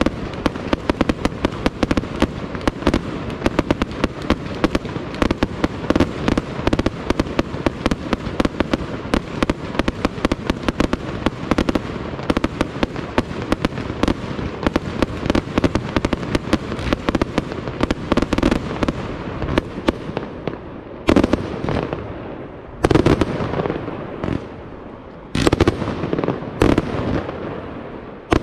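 Fireworks display: a dense, rapid barrage of small aerial bursts and reports for about twenty seconds. Then it thins out to a few separate, louder shell bursts near the end.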